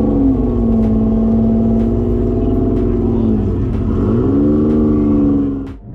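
Car engine accelerating: its pitch climbs and holds, dips about three and a half seconds in, climbs again, then cuts off suddenly near the end.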